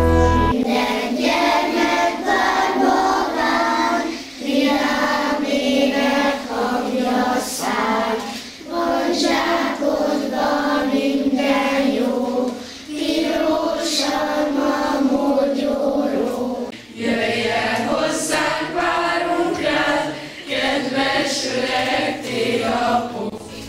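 A group of voices singing a song together, like a choir, in phrases of about four seconds with short breaks between them.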